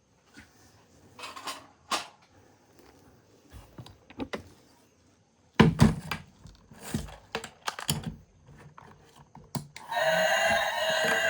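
Toy vehicles being handled and set down: irregular clicks, taps and knocks, the loudest one about five and a half seconds in. Music starts near the end.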